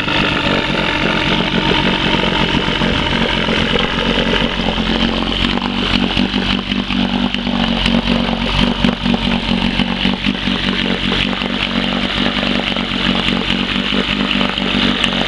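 1972 Evinrude 25 hp two-cylinder, two-stroke outboard motor running steadily after a push-button start.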